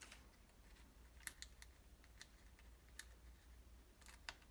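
A few faint, sharp clicks and ticks of fingernails picking at a strip of foam adhesive dots (Dimensionals), peeling them off their backing: a little cluster about a second in and two more near the end. A low steady hum runs underneath.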